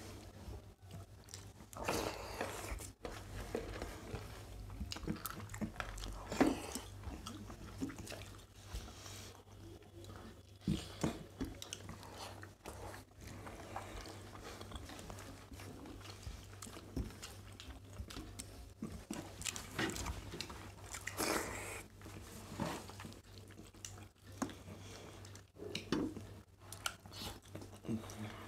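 Two people eating rice and chicken curry by hand from stainless steel plates: chewing and fingers squishing and scooping rice, in irregular short noises over a steady low hum.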